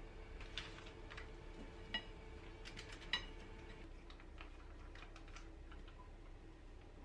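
Scattered light clicks and taps of kitchen handling: an oil bottle poured over a pan, then metal tongs picking marinated chicken pieces out of a plastic zip bag. The two sharpest clicks come about two and three seconds in, over a faint steady hum.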